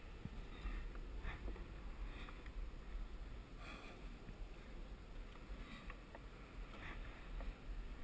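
Faint low rumble and rustle from a head-mounted action camera's microphone, with a few short, faint breaths from the climber.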